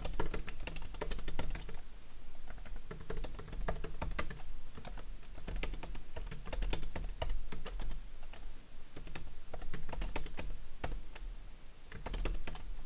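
Typing on a computer keyboard: a steady run of quick key clicks, with a brief lull near the end.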